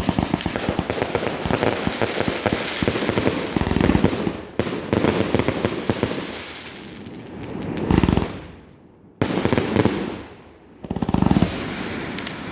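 Fireworks display: a dense run of rapid crackling, followed by three heavy booms of aerial shells bursting, about 4, 8 and 11 seconds in.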